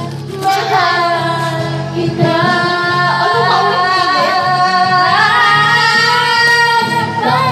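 A song with a high female voice singing long held notes over a steady accompaniment.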